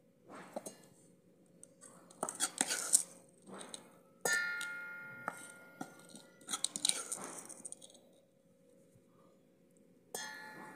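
Steel ladle scraping fried masala out of a steel kadhai and knocking against the steel mixer-grinder jar. A sharp clang about four seconds in rings on and fades, and another clang comes near the end.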